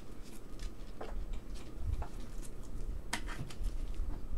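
Trading cards and plastic card sleeves being handled: scattered light ticks, taps and rustles, with a few sharper clicks about three seconds in.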